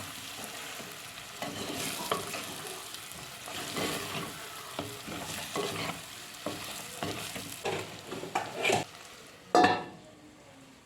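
Pork with masala frying in oil in a pan, sizzling, while a spatula is pushed around the pan in repeated scraping stirs, with one louder clatter near the end.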